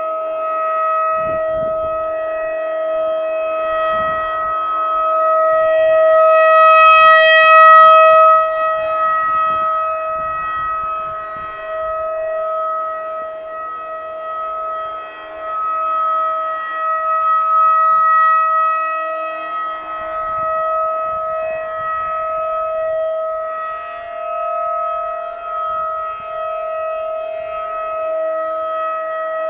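Federal Signal 2001-DC rotating warning siren sounding one steady tone. The sound swells and fades as the horn turns toward and away, loudest about a quarter of the way in and again just past halfway. A few brief low rumbles come through underneath.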